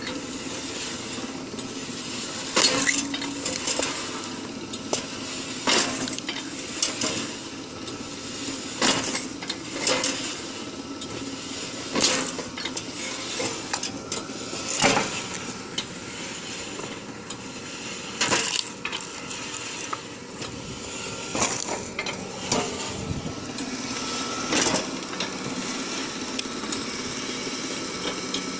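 Homemade crank-driven log splitter running steadily on its electric motor, belt and gearbox, with about a dozen loud cracks and clanks, every second or two, as logs split on the steel wedge and the pieces drop onto the steel table.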